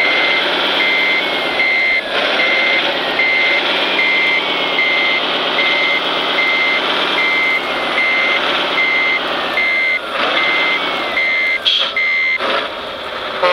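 Sound module of an RC MAN dump truck: a reversing beeper beeping about one and a half times a second over diesel engine sound that rises and falls, with a few whistles that fall in pitch. The beeping stops near the end.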